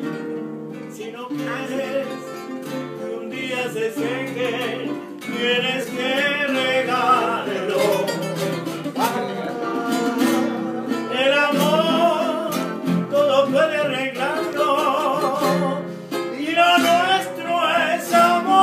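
Three acoustic guitars strumming and picking chords while a man sings long, wavering held notes in a live, unamplified Spanish-language love song.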